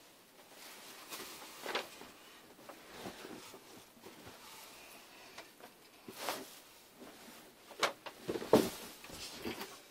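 Clothing rustling and scattered soft knocks as a person shifts and bumps about right up against the phone's microphone, the loudest knock coming near the end.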